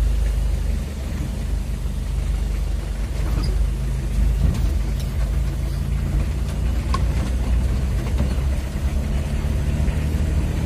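Mitsubishi L300 pickup's engine running at low speed while driving, heard from inside the cab, with steady road noise.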